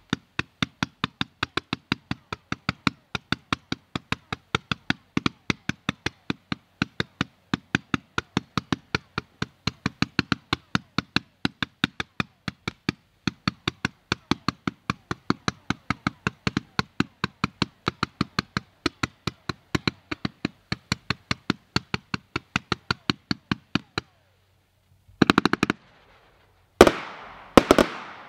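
Red Rhino "On The Night Train" multi-shot fireworks cake firing tailed comets one after another in a steady run of sharp pops, about three a second. After a short pause, a quick volley and then two louder bursts, the last one trailing off.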